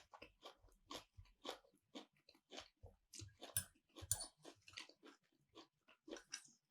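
Close-miked chewing with the mouth: rhythmic wet chews at about two a second, with a few louder crunches around the middle.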